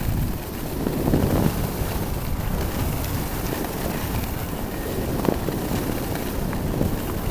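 Wind buffeting the camera microphone during a downhill ski run, a steady low rush, with edges scraping on packed groomed snow in a few brief louder strokes, one about a second in and one past five seconds.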